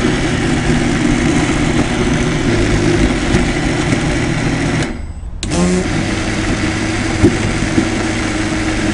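Electric mixer-grinder (mixie) running, blending a cooked lentil-and-vegetable mixture into a smooth paste. The motor stops briefly about five seconds in and spins back up.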